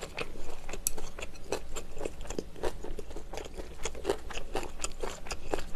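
Close-miked mouth sounds of chewing a mouthful of grilled Iberico pork with green-onion kimchi: irregular wet clicks and crunches, several a second.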